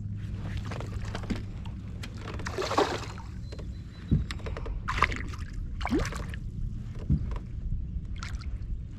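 Handling noises aboard a fishing kayak: scattered knocks and rustles over a steady low rumble, with the sharpest knocks a little past the middle.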